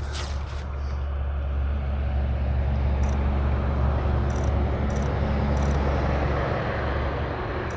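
A car engine running steadily with road noise that swells through the middle and eases off near the end.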